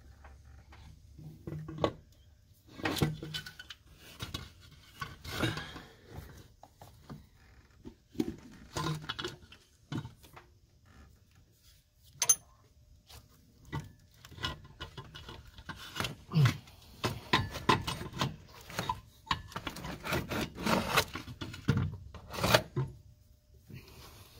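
Metal turbocharger being worked down onto its pedestal on a 7.3 Power Stroke diesel: irregular metal-on-metal scraping and rubbing with scattered knocks as it is shifted into place, and one sharp clink about twelve seconds in.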